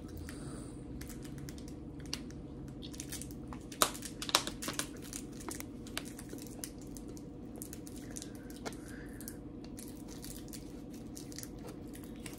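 Someone chewing a sticky filled candy: scattered small clicks and crackles, a cluster of louder ones about four seconds in, over a steady low hum.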